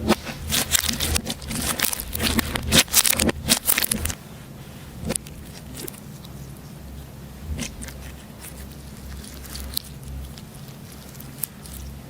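Slime being squished and worked by hand, giving dense crackling and popping clicks for about the first four seconds, then only a few scattered soft clicks.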